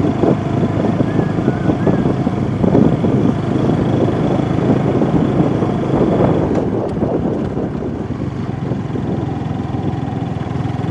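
Motorbike running on the road, a steady engine and road noise with wind on the microphone.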